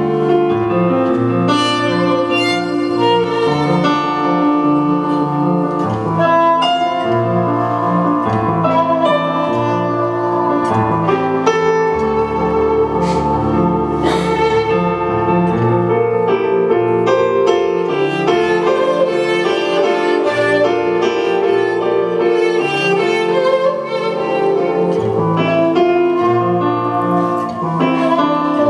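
Kamancheh, the Persian bowed spike fiddle, playing a bowed melody of sustained notes over an accompaniment of lower bass notes that change every second or two.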